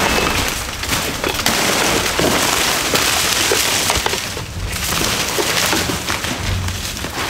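Palmetto fronds and undergrowth rustling and crackling as someone pushes through them: a steady rustle with scattered small snaps.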